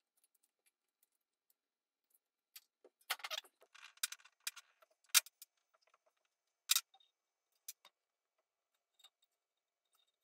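Light clinks and rattles of small hard objects being handled, with a cluster of them between about three and five and a half seconds in, then a few single clicks.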